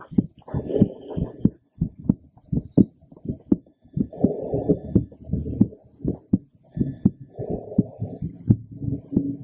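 A woman's heartbeat heard through a stethoscope: a steady run of short lub-dub thumps, with a softer rushing sound that swells and fades every few seconds.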